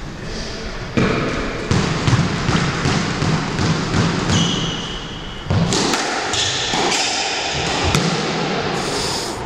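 Squash rally: the ball is struck by rackets and smacks off the court walls in a string of sharp cracks starting about a second in, with shoes squeaking on the wooden floor.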